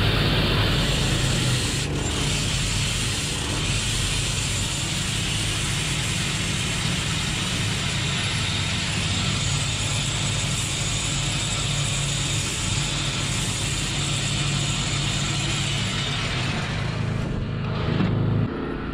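Homemade stone-dressing machine grinding a rough stone with a gang of angle-grinder cutting discs on a belt-driven shaft: a steady, loud grinding hiss over the drone of the small Honda petrol engine driving it. Near the end the grinding hiss dies away, and then the engine drone stops.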